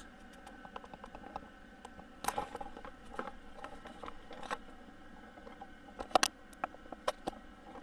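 Faint handling noise: scattered light clicks and taps, with a few sharper clicks about six to seven seconds in.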